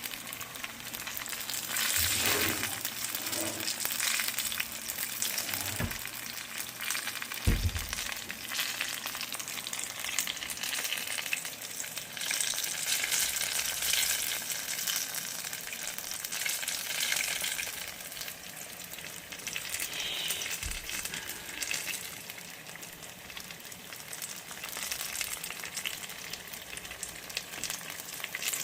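Turon (banana and jackfruit spring rolls) frying in hot oil in a pan, sizzling steadily. A few low knocks come about 2, 6 and 7.5 seconds in, the last one the loudest.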